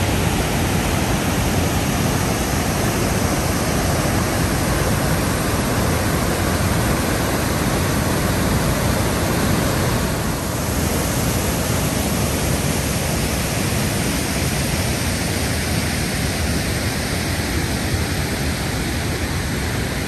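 Steady roar of a large waterfall, Blackwater Falls, pouring over its rock ledge into rapids, with a brief dip in level about halfway through.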